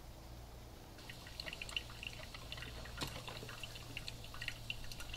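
Kitchen ambience: a steady low hum, with many irregular small ticks and clinks beginning about a second in.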